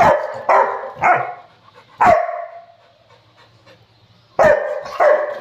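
Rottweiler barking in short, sharp barks: four in quick succession, a pause of about two seconds, then two more near the end.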